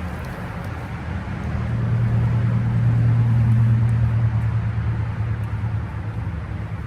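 Heat pump equipment running with a steady low hum and a rush of air noise. The hum grows louder about a second and a half in and eases off again toward the end.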